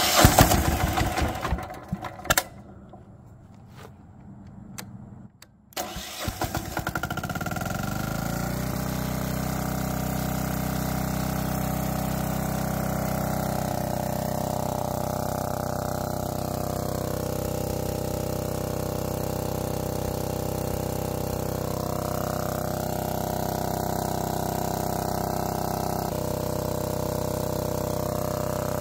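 Lombardini 15LD400 single-cylinder air-cooled diesel generator engine started on its electric starter. After a loud, uneven burst at first, it catches about six seconds in and settles into steady running.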